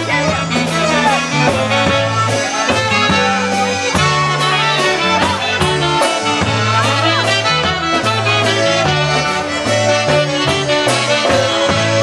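Live polka band playing a waltz: trumpet and saxophone carry the tune over bass guitar and a steady drum-kit beat, with a button accordion in the band.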